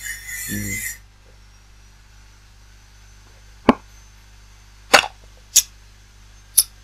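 A person drinking straight from the container: four sharp gulping swallows, the first about three and a half seconds in, then roughly one a second. A short breathy rush comes in the first second.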